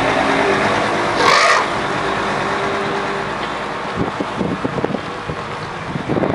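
Outdoor background noise with a steady motor hum. There is a brief higher-pitched sound about a second in, and wind buffets the microphone from about four seconds in.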